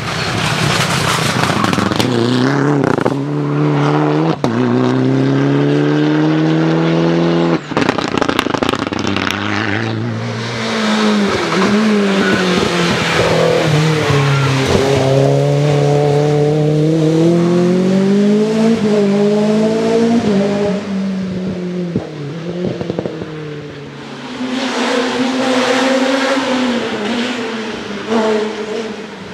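Rally cars driven flat out on a tarmac stage, one after another, among them a BMW M3 (E30). Each engine revs high and climbs through the gears, with a sharp break in the sound at each upshift (twice in the first eight seconds), then drops in pitch and pulls up again.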